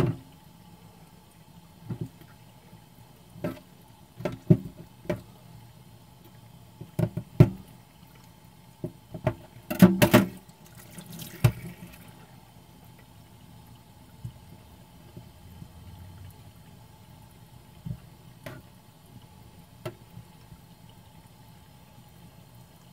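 Kitchen tap running a thin, steady stream into a stainless-steel sink, with scattered knocks and clatter as raw pig's feet are handled and trimmed in the basin.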